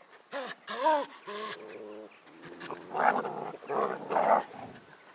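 Puppies at play: a few short, high, arching yelps and whines, then harsh, rough growling about halfway through, which is the loudest part.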